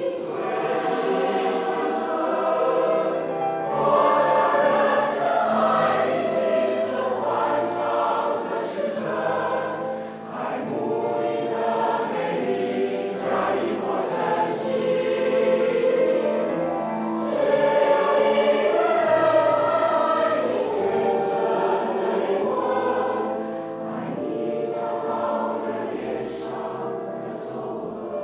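A choir singing a slow song, its sound swelling and easing in phrases.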